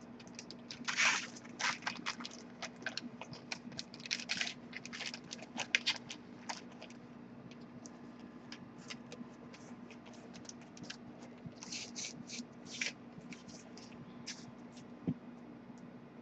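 Clear plastic bag crinkling and rustling as it is handled, in irregular bursts with louder clusters about a second in, around four to six seconds and around twelve to thirteen seconds. A faint steady hum runs underneath.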